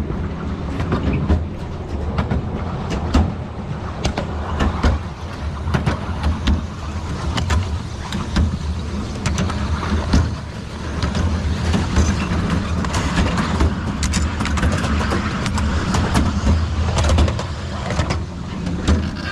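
Miniature railway train running along the track, heard from on board: a steady low rumble of wheels on rails with frequent irregular clicks and clacks.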